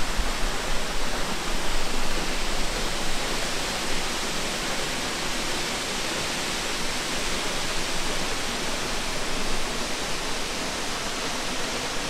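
Salt Creek Falls, a 286-foot single-drop waterfall, giving a steady, even rush of falling water heard from the overlook above the plunge pool.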